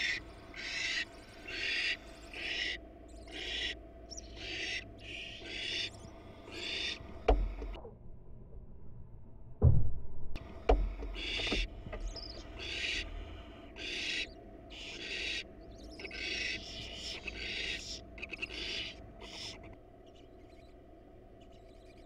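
Barn owls in a wooden nest box hissing over and over, in short raspy bursts about one a second. About halfway through the calls pause and a few dull thumps sound, and the hissing stops a couple of seconds before the end.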